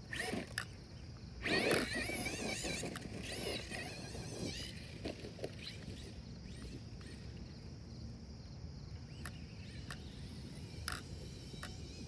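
Brushless electric motor of a radio-controlled truck whining, its pitch wavering quickly up and down with the throttle. It is loudest for a few seconds near the start, then fades to a faint background with a few scattered clicks.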